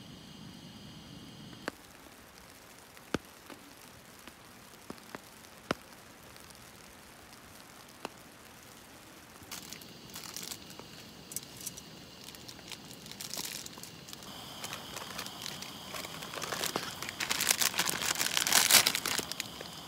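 Plastic instant-ramen wrapper crinkling and tearing as it is opened and handled. It begins about halfway in and is loudest near the end, after a few faint scattered taps.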